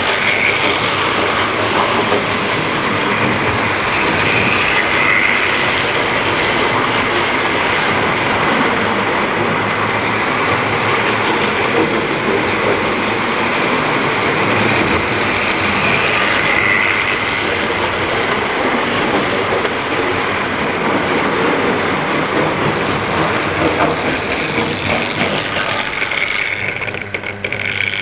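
Model railway train running on the layout's track: a steady running sound of its electric motor and wheels on the rails, without letting up.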